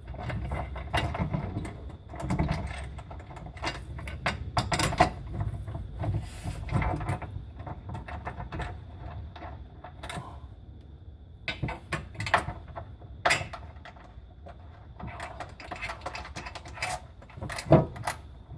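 Irregular metal clicks and knocks from fitting an aftermarket jacking rail and its bolts up under the car by hand.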